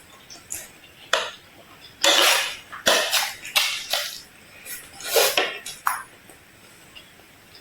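Mealtime eating sounds: a run of short, crisp scraping and crunching bursts, about eight of them, loudest from about two to five seconds in.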